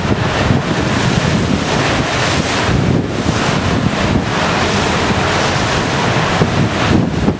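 Storm wind buffeting the microphone in loud gusts, over the noise of a rough sea breaking in the harbour.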